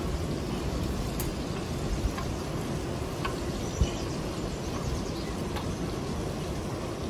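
Gusty wind rumbling on the microphone, with a few faint high insect chirps and a couple of soft thumps about two and four seconds in.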